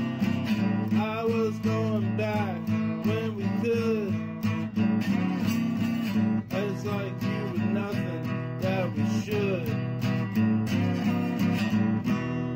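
Music: strummed acoustic guitar with a melody line that slides up and down over it.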